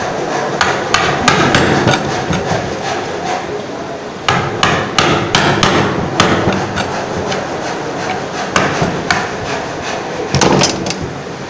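Wooden mallet striking a chisel driven into a block of wood: sharp knocks in quick runs of several blows with short pauses between them.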